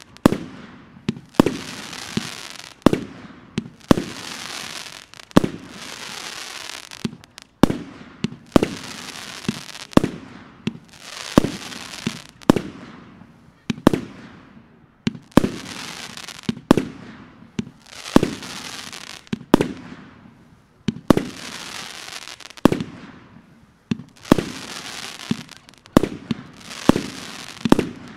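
China Red "Dog" fireworks cake firing its shots one after another, about one every second and a half, each a sharp bang followed by a hissing, crackling trail that fades before the next.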